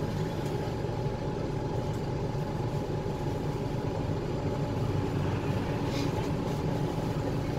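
Bus engine and drivetrain running, heard from inside the passenger cabin of a low-floor midibus (KL6850A2): a steady low hum with a faint steady whine over it. A brief hiss comes about six seconds in.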